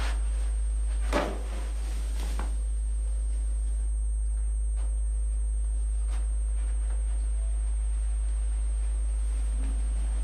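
A steady, very deep drone sounds throughout. About a second in there is one sharp knock, and a few faint soft clicks follow later.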